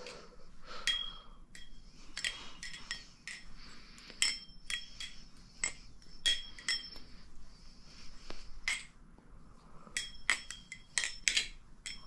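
Maxace Petrel balisong being flipped, its channel-titanium handles clicking at irregular intervals, many clicks followed by a short high metallic ring; the pivots have just been tightened.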